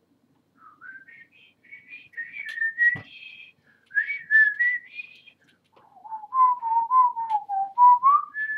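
A man whistling a short tune in clear single notes, pitched high in the first half and dropping lower in the second half. A single sharp knock sounds about three seconds in.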